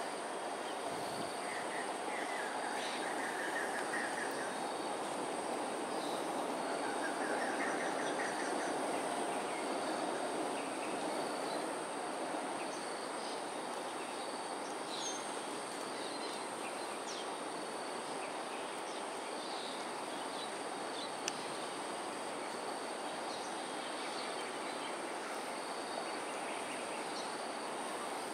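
Steady outdoor background rumble, a little louder in the first ten seconds, under a continuous high-pitched whine, with a few faint short chirps.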